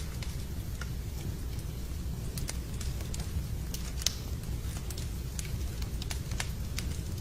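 Wood fire burning in a fireplace: a steady low rumble of flames with irregular sharp crackles and pops, one louder pop about four seconds in.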